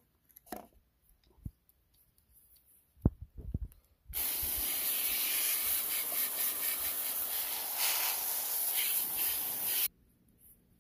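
Garden hose spray nozzle hissing steadily as it sprays a fine mist of water onto a garden figurine, for about six seconds, starting and cutting off abruptly. A few low thumps come just before the spray starts.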